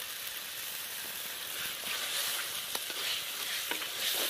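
Thick tomato-onion masala sizzling in an oiled kadai as spice powder is sprinkled on and stirred in with a perforated metal spatula. A steady frying hiss, with a few light scrapes of the spatula in the second half.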